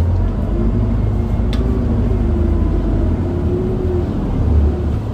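Isuzu Erga city bus (QDG-LV290N1) heard from inside the cabin while under way: its four-cylinder turbo-diesel engine rumbles steadily, its pitch rising and falling a little. There is a brief sharp click about one and a half seconds in.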